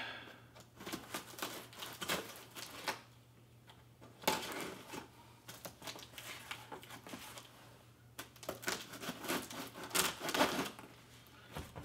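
Cardboard shipping box being cut open with a knife: irregular scraping, slicing and clicking as the blade runs through packing tape and cardboard, with rustling of the flaps, in louder clusters about four seconds in and again near the end.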